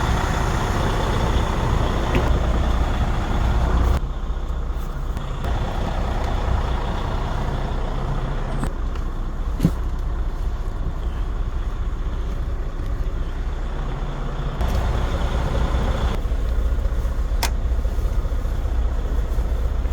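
Diesel semi-truck engine idling: a steady low rumble, with a couple of short knocks.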